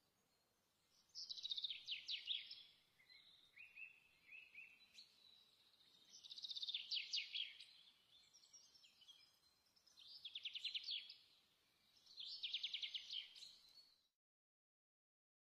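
A songbird singing four short, rapid trilled phrases, each a few seconds apart, with a softer, lower phrase between the first two, over faint background hiss. The sound stops abruptly about a second before the end.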